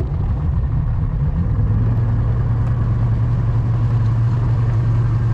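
Boat motor running underway, its low drone wavering at first and then holding steady from about a second and a half in.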